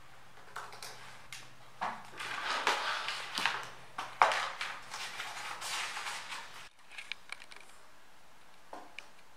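Handling noises: light rustling with scattered clicks and knocks of small objects being moved, stopping abruptly at about two thirds through, after which only a few faint ticks are left.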